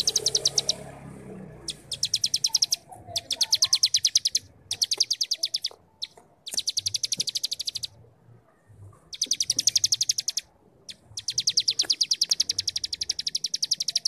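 A cigun (ciblek gunung) singing its ngebrem song: rapid, buzzy trills of fast repeated high notes, each phrase about a second long, repeated about six times with short pauses between.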